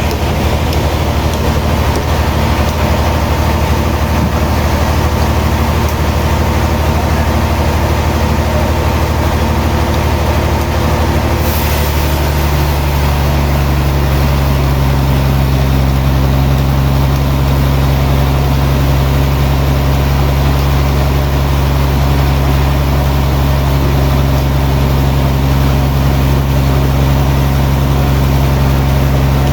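Heavy sawmill machinery running steadily, a loud deep hum with a fixed note that grows stronger and steadier about twelve seconds in.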